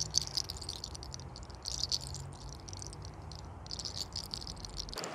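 Fingers rubbing and rustling through hair on the scalp close to the microphone, in crackly bunches of high hiss: around the start, about two seconds in, and again near the end. A low steady hum lies underneath and stops just before the end.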